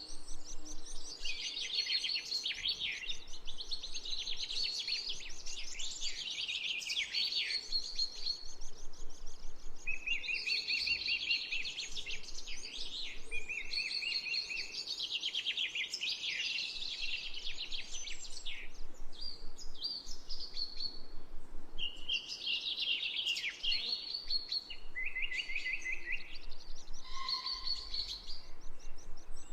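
Songbirds singing: a continuous run of rapid trills and chirping phrases, one after another with short gaps, over faint background hiss.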